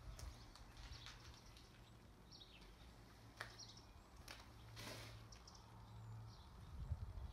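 Quiet outdoor ambience: small birds chirping faintly a few times, with a few footsteps crunching on broken glass and debris and a soft thump near the end.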